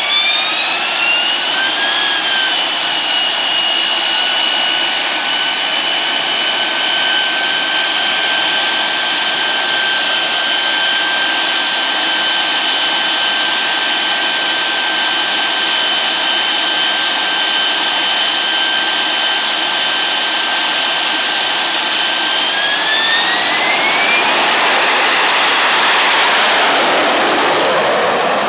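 AV-8B Harrier's Rolls-Royce Pegasus turbofan running on deck: a loud high whine rises in pitch, holds steady for about twenty seconds, then climbs again as the engine spools up for takeoff, and near the end the whine gives way to a rushing jet blast.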